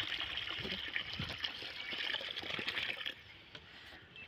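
Water pouring in a stream from a plastic water-cooler jug onto loose soil, splashing as it lands; the pour stops about three seconds in.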